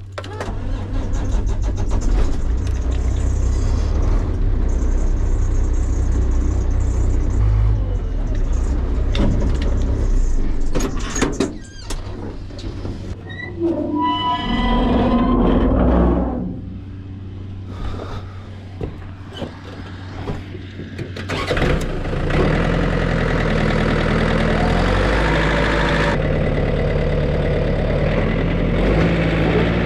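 Background music playing over a vehicle engine running, with a brief rising whine about halfway through.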